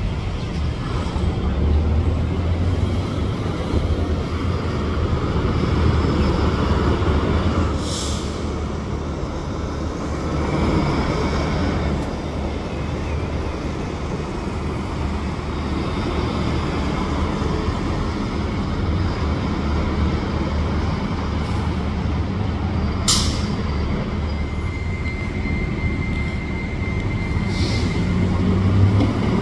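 Diesel city buses running at a stop, with three short air-brake hisses: one about eight seconds in, two more near the end. A steady high tone sounds for a few seconds near the end.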